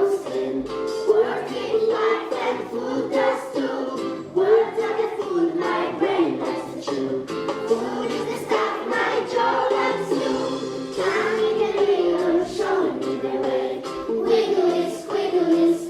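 A group of young schoolchildren singing an English song together as a choir, the melody carried without a break.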